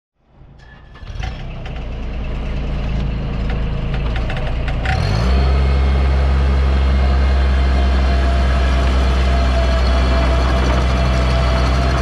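Bobcat MT55 mini track loader's engine starting about a second in and running at low speed with some clicking, then throttled up just before five seconds in to a steady, higher speed.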